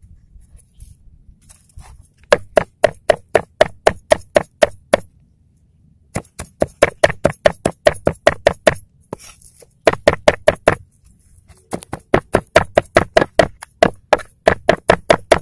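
A cleaver chopping raw minced chicken on a wooden cutting board: fast, even knocks of the blade on the board, about five a second, in four runs with short pauses between them.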